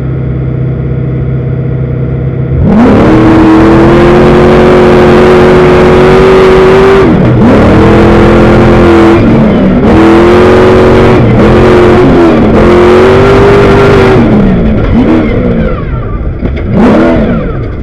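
Class 1 desert race car's engine idling, then about two and a half seconds in opening up to full throttle with a loud, high engine note that drops and climbs again several times. Near the end it revs up and down in quick sweeps.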